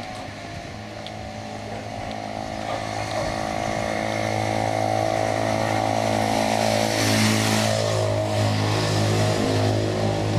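A motor vehicle's engine running at a steady pitch, growing louder over the first few seconds, with a short burst of hiss about seven seconds in.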